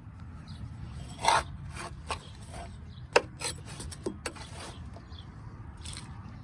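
Irregular scraping and knocking over a low steady rumble, with a louder scrape about a second in and a sharp click about three seconds in.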